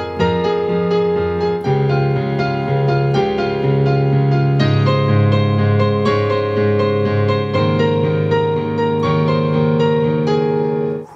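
Digital piano set to an acoustic piano sound, played through Edifier S1000W bookshelf speakers: slow held chords that change every second or two, stopping short near the end.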